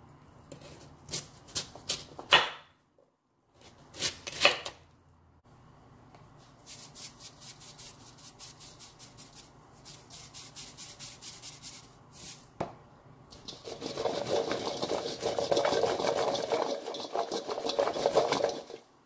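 A knife chops through Korean radish on a wooden cutting board in several sharp strokes, followed by a long run of quick, even taps. Near the end the radish cubes are tossed and shaken in a stainless steel colander, a loud, dense rattle that is the loudest sound here.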